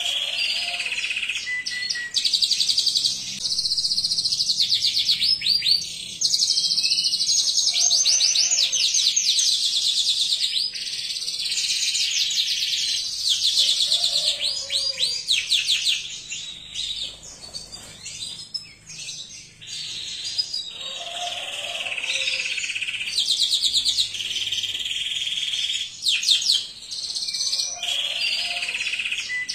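Canary singing a long song of rapid trills and rolls in long phrases, with a few short breaks.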